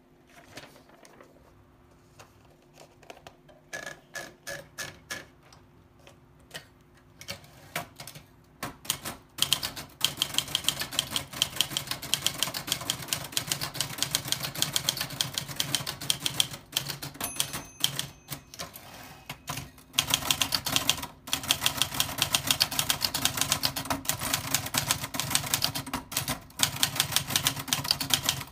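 Old typewriter being typed on, its keys and typebars clacking. It starts with a few scattered keystrokes, then settles into rapid, continuous typing from about ten seconds in, easing off briefly about two-thirds of the way through.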